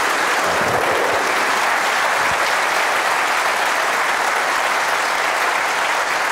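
A large studio audience applauding, a dense, steady clapping that holds at one level.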